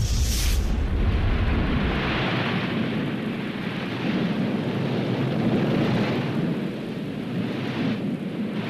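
Volcanic eruption: a deep rumbling burst in the first two seconds, then a steady rushing noise.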